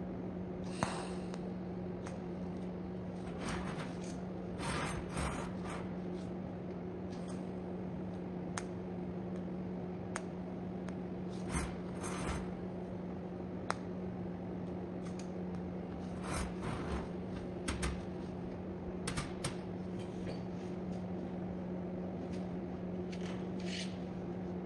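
Scattered sharp metallic clicks and short scraping sounds of steel round bar and hand tools being worked, over a steady low hum.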